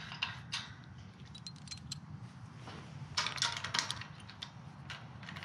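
Metal gate-latch hardware clinking as a chrome bolt and its fittings are worked by hand through the latch bracket: scattered light clicks, with a quick run of sharper clinks a little past three seconds in.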